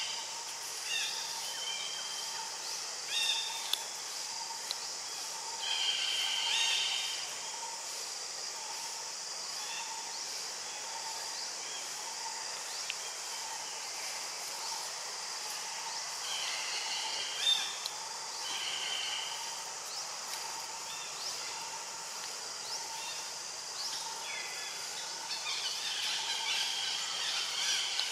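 Outdoor ambience: a steady high hiss with birds chirping on and off, and a faint note repeating at an even pace underneath.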